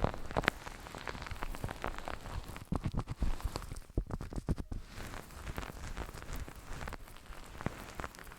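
Fingers rubbing and tapping the ears of an ASMR microphone, giving a dense, irregular run of crackling clicks and rubs, thickest around three seconds and four to four and a half seconds in.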